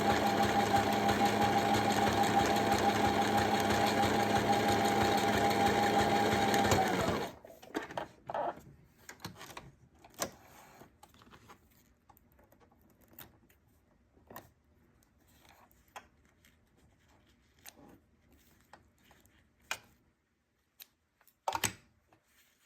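Brother LS-590 mechanical sewing machine running steadily with a motor whine, stitching a buttonhole with its buttonhole foot, then stopping abruptly about seven seconds in. Faint scattered clicks and handling noises follow, with a sharper clatter near the end.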